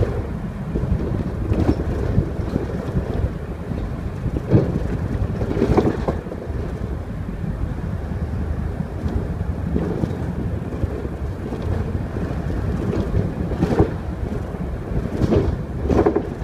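Mercedes city bus moving along a street, heard from inside: a steady low engine and road rumble, with a few short knocks and rattles as it goes over bumps.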